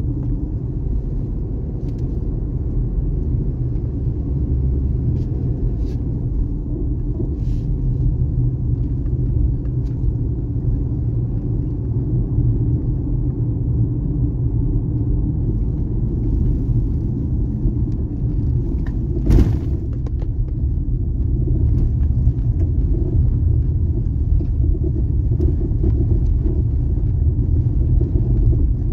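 Car driving: a steady low rumble of engine and road noise. A single sharp knock comes about two-thirds of the way through.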